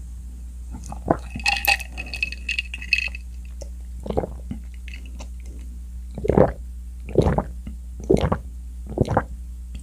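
A person drinking an iced drink through a straw: a slurping sip with small clicks at first, then loud swallowing gulps about once a second.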